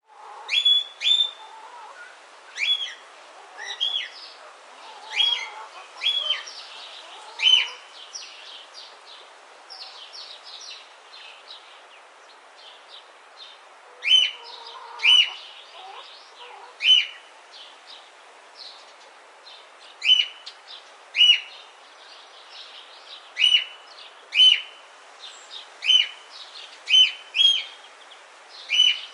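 Birds chirping: one bird repeats short, loud chirps that drop in pitch, about one a second, over fainter chirps from other birds. The loud chirps pause for a few seconds about a third of the way in, then resume.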